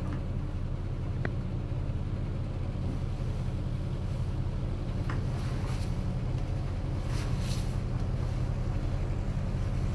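Tugboat engine running steadily, a low even drone heard from inside the wheelhouse, with a faint click or two.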